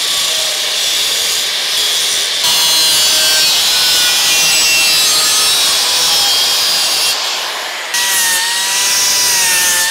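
Angle grinder cutting through a section of sheet-steel roof gutter, a loud steady harsh hiss of the disc in the metal. About eight seconds in it eases off the cut and runs with a steady motor whine.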